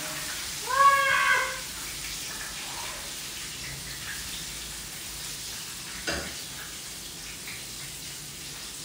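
Chicken wings sizzling steadily as they fry in oil in a skillet. About a second in, a short high-pitched call rises and falls, and a single sharp knock comes about six seconds in.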